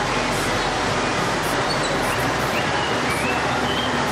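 Dense motorbike and car traffic heard from a slowly moving scooter in the thick of it: a steady, unbroken rush of engines and street noise.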